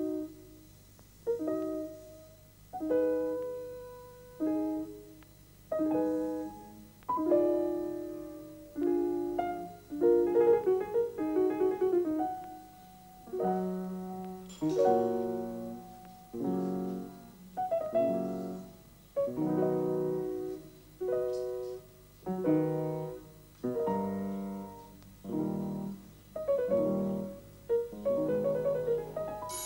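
Slow solo piano music: chords struck about every second and a half, each left to ring and fade, with a quicker run of notes about a third of the way in.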